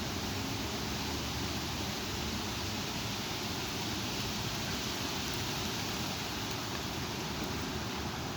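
Strong thunderstorm wind blowing, a steady rushing noise that keeps an even level throughout.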